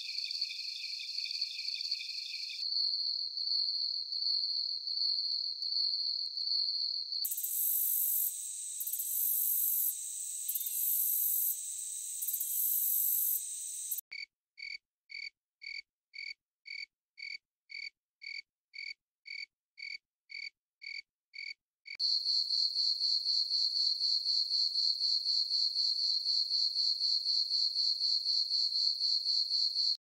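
Cricket song from several different recordings spliced one after another. First comes chirping, then a steady high trill, then a loud high-pitched buzzing hiss, then evenly spaced chirps about twice a second. A fast, continuous high trill follows and stops abruptly at the end.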